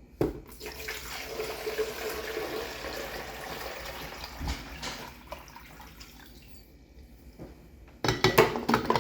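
Kitchen tap running into a sink for about five seconds, then fading. Near the end comes a brief, loud clatter of things being handled and set down.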